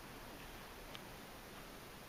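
Faint, steady hiss with a small tick about a second in, as an ear tip is pressed back onto a wooden earbud.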